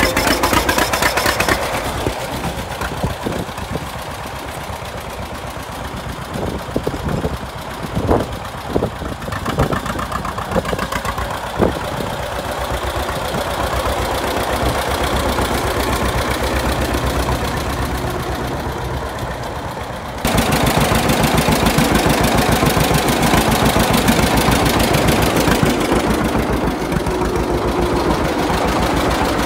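John Deere Model A tractor's two-cylinder engine running with a steady pulsing exhaust beat and a few sharper pops. About twenty seconds in, the sound jumps louder and stays level.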